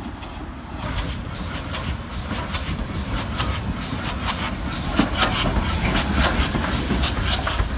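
GWR 4575-class small prairie tank locomotive rolling slowly past, its wheels clicking over the rail joints under a low rumble. It grows louder as it nears, with the clicks coming thicker about halfway through.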